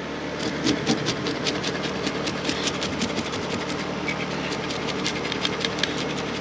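The back of a fillet knife scraping scales off a rainbow runner: quick, repeated rasping strokes, several a second. A steady mechanical hum runs underneath.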